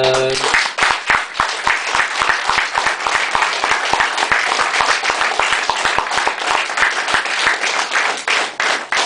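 Audience applauding: a long round of many hands clapping that starts suddenly.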